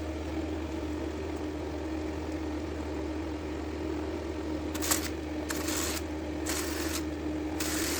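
A small electric motor running with a steady hum. Several short hissing rushes come over it in the last three seconds.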